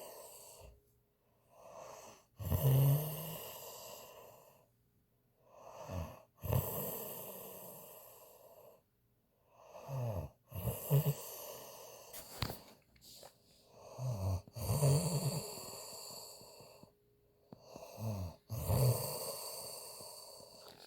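A sleeping woman snoring. Five snoring breaths come about four seconds apart, each starting with a short, low rattle and trailing off in a long, breathy fade.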